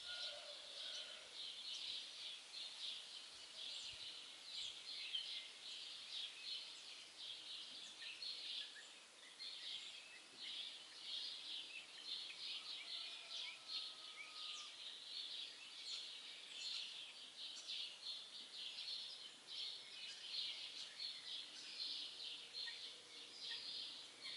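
Many small birds chirping and twittering together in a dense, continuous chorus of rapid high chirps, with a few lower whistled notes now and then.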